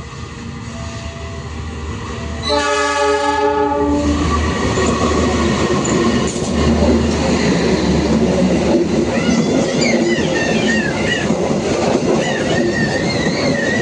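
Level-crossing warning beeps, then a train sounds one long horn blast about two and a half seconds in and passes loudly close by with clattering wheels. Wavering high wheel squeal comes in near the end.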